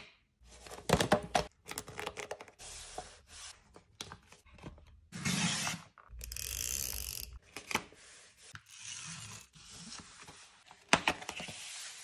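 Hands handling a hardcover sketchbook and loose paper close up: a run of taps and clicks, with paper sliding and rustling, and a longer scraping rustle about six seconds in.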